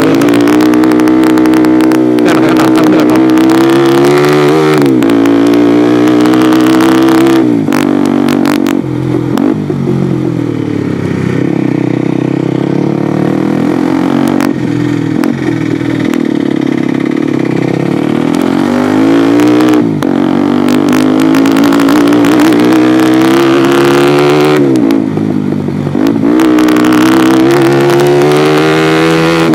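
Bajaj Pulsar NS200 single-cylinder engine breathing through a replica Akrapovic slip-on silencer while riding. The pitch climbs and drops several times as it accelerates and shifts, and holds steadier in the middle. There are a few short crackles from the exhaust when the throttle is eased off.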